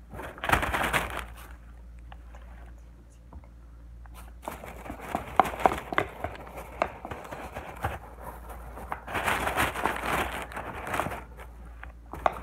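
A hand kneading and squishing homemade slime, just activated with laundry detergent, in a plastic tub. It makes crackling, sticky squishing noises with small sharp clicks, in bursts about half a second in, from about five to seven seconds in, and again around nine to eleven seconds in, with a quieter lull between.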